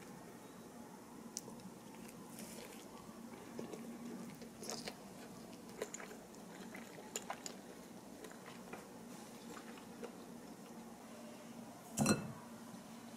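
Small kitchen handling sounds: scattered light clicks and taps, with one louder knock about twelve seconds in.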